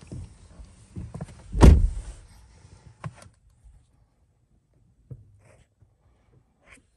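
Car door shutting with one heavy thump about one and a half seconds in, heard from inside the cabin, followed by a few light clicks and knocks.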